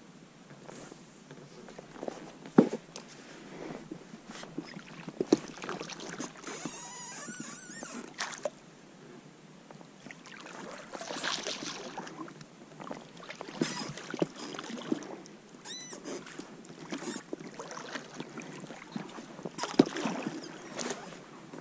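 Oars of a one-man pontoon boat dipping and pulling through calm water in uneven strokes: swishes and splashes, with occasional sharp knocks of the oars in their mounts.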